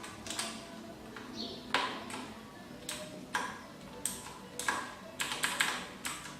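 Irregular sharp clicks and clacks from a mechanical keyboard with Cherry MX Blue switches being handled, about a dozen in all, coming closer together near the end.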